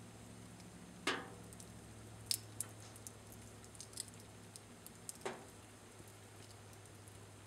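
Wood fire crackling in a fireplace: two louder pops, one about a second in and one about five seconds in, with lighter crackles between them, over a faint steady low hum.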